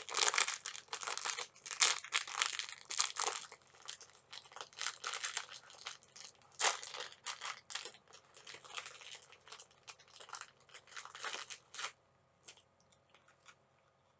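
Plastic snack wrapper being crinkled and torn open by hand, a long run of irregular crackling that stops about twelve seconds in, leaving only a few faint clicks.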